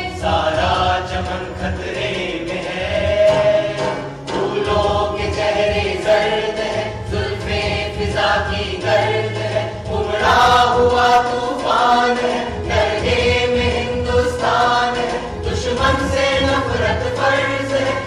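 A song: singing voices carry a melody over instrumental backing with a steady low bass line.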